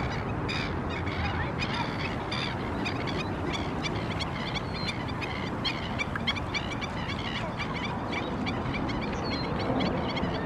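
Black-necked stilts giving sharp, repeated alarm calls, several a second and overlapping, as birds disturbed by an off-leash dog wading into their stream.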